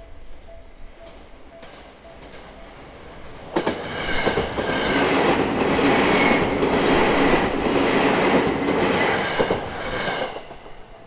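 An electric commuter train passing close by over a level crossing, its wheels clattering over the rail joints. It comes in suddenly about three and a half seconds in, stays loud for about six seconds and fades away near the end.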